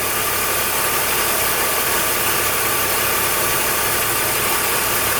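BMW M54 straight-six idling under electrical load, with a steady whistle from the alternator. The whistle comes from a failing rectifier (diode pack), which lets through about 222 millivolts of AC ripple.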